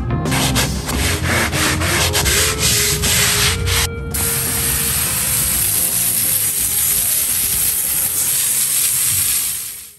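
Stiff long-handled brush scrubbing soapy water over asphalt in quick repeated strokes. About four seconds in, it gives way to the steady hiss of a water jet from a spray gun blasting the suds off the asphalt, which fades out near the end.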